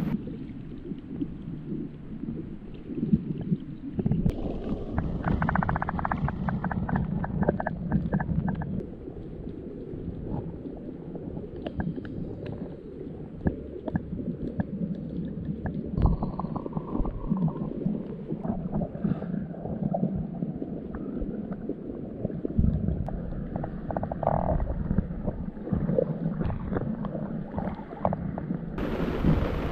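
Muffled underwater sound from a camera held below the surface while snorkeling: low rumbling and gurgling water with scattered clicks and bubble sounds. Just before the end the camera breaks the surface and the sound turns bright and open again.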